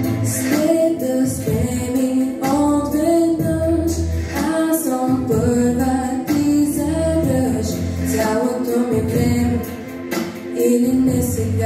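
A young woman singing a Bulgarian pop song into a handheld microphone over a backing track, with long held notes that bend in pitch, amplified through a hall's sound system.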